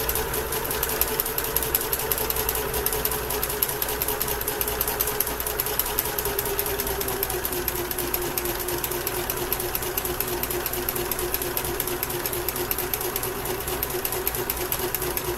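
A basic Kenmore electric sewing machine running continuously, stitching along the edge of cross stitch fabric: a steady motor whine with a fast, even needle clatter. Its pitch drops slightly about halfway through as the machine runs a little slower.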